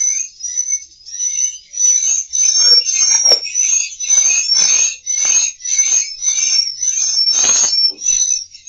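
Recorded swiftlet twittering played back as a lure sound for a swiftlet house: loud, high-pitched chirps repeating over and over, about two a second.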